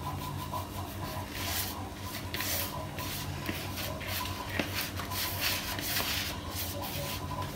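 Hands rubbing flour and oil together in a plastic bowl, a soft, irregular swishing rasp with stroke after stroke. This is oil (moyan) being rubbed into maida flour before any water goes in.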